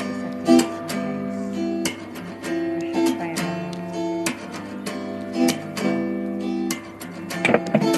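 Background music of strummed acoustic guitar, chords changing every second or so.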